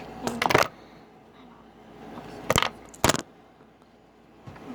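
Mixing tool scraping and knocking against a bowl while a slime mixture of lotion and soap is stirred: a few short, sharp scrapes and clacks, a cluster about half a second in and two more about two and a half and three seconds in.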